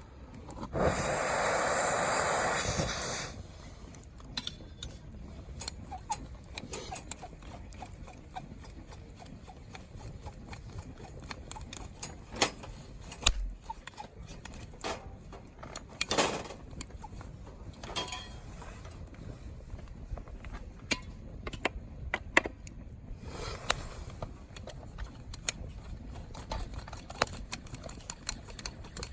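Wood campfire crackling, with sharp pops and snaps at irregular intervals. A loud hissing rush fills the first three seconds, then cuts off.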